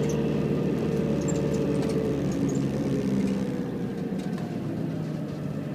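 Iveco Daily van driving, heard from inside the cab: a steady engine hum over road noise that eases off a little in the second half, with a few faint rattles from loose things in the back.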